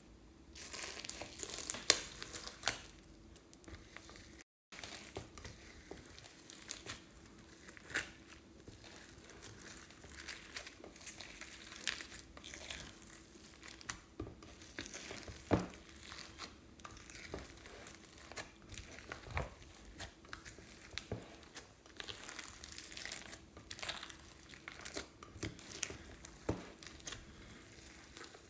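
Slime packed with foam beads, clay and glitter being pressed and kneaded by hand in a glass dish: irregular crackling and crinkling with many small sharp clicks.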